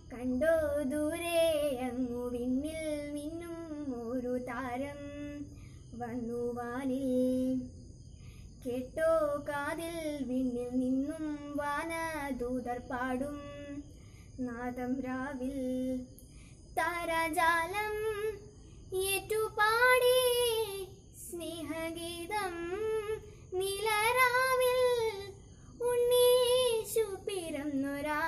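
A single child's voice singing a song in phrases of a second or two with short pauses between them, with no instrumental accompaniment. From about halfway through, the melody sits noticeably higher.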